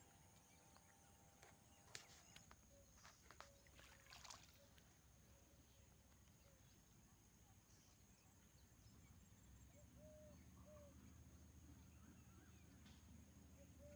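Near silence: faint outdoor ambience with a few soft clicks and rustles in the first few seconds and a handful of faint short chirps later on.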